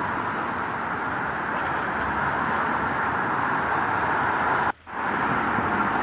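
Steady rain with traffic noise mixed in, an even hiss. The sound cuts out abruptly for a split second about three-quarters of the way through, then resumes.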